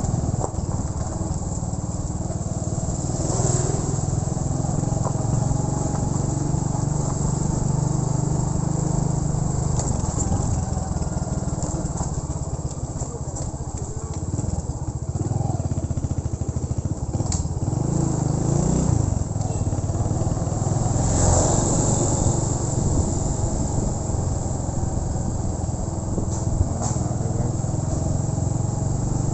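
Motorcycle engine running steadily while being ridden, with a steady rush of road noise over it.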